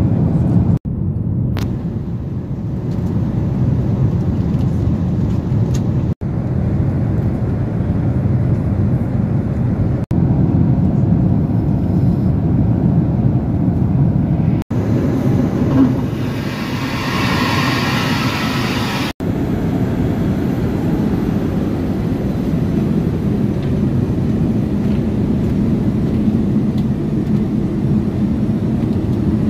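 Steady low rumble of airliner cabin noise inside an Airbus A380, engines and airflow, in several spliced clips with a brief dropout at each cut. A short stretch a little past the middle has a brighter hiss over the rumble.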